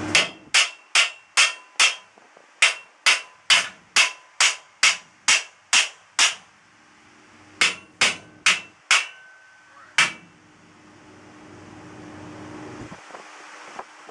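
A hammer striking the metal exhaust-fan frame to seat it in the hole cut in the food truck's wall. The blows come about two to three a second, each with a short metallic ring: a run of about fourteen, a brief pause, then five more, the last one a little apart.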